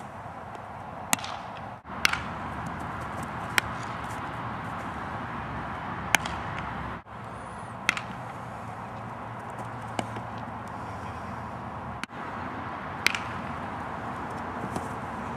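Baseball infield practice: about six sharp single cracks, spaced a second or more apart, of a bat hitting ground balls and the ball smacking into a glove, over a steady background hiss. The hiss cuts out briefly three times.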